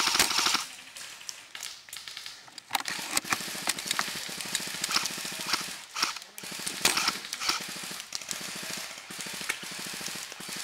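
Airsoft guns firing on full auto: a loud burst of rapid shots right at the start, then from about three seconds in a steady rapid rattle of more automatic fire mixed with scattered sharp cracks.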